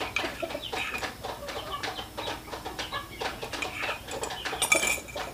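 Chicken clucking, among scattered short clicks and taps, with a brief sharper sound near the end.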